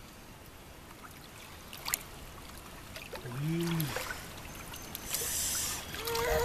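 Pool water lapping and splashing as a baby is moved through it, with a louder splash about five seconds in. A short low hum from a voice comes about halfway through, and a brief higher voice sound near the end.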